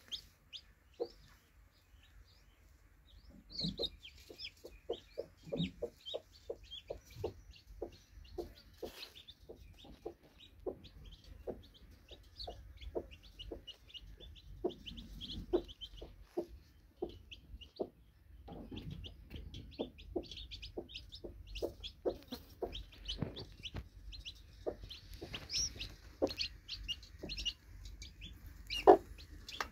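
A broody hen clucking to her newly hatched chicks in runs of short low notes, starting about four seconds in, over the chicks' constant high peeping. One sharper, louder sound comes near the end.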